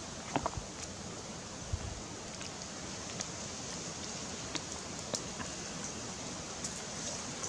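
Small wood fire crackling lightly, a few scattered clicks over a steady hiss, with a soft low knock about two seconds in.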